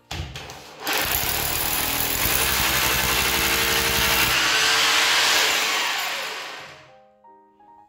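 Electric hammer drill boring into ceramic wall tile with a masonry bit: a short burst at the start, then it runs steadily from about a second in and winds down near the end, with a fast hammering pulse under the grinding noise.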